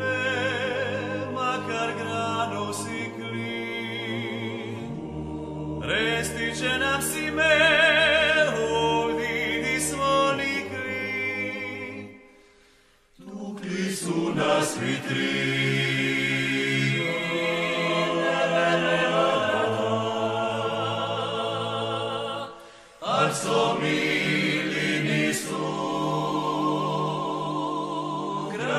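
Dalmatian klapa song: a group of voices singing a cappella in close harmony over held bass notes, with vibrato on the upper voices. The singing stops for about a second roughly twelve seconds in, then resumes, with a brief breath-break near twenty-three seconds.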